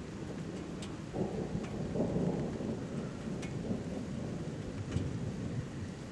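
Rolling thunder from a heat thunderstorm: a low rumble that swells about a second in and dies away near the end, over a steady hiss.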